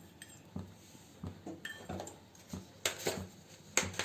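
Faint, irregular clinks and taps of kitchen utensils against a vessel, about eight in all, as crushed pepper and garlic are added to milk.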